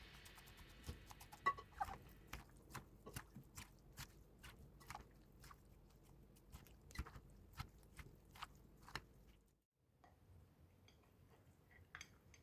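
Faint, irregular crunches of cucumber salad being chewed, about one to two a second, stopping about ten seconds in.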